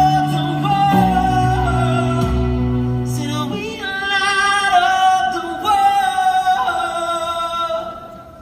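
Live music with a singer holding long, wavering notes over a low accompaniment. The low accompaniment drops out about three and a half seconds in, and the voice carries on alone before fading near the end.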